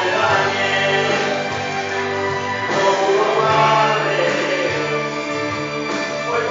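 Two men singing a Spanish-language praise song (alabanza) together into handheld microphones, holding long notes.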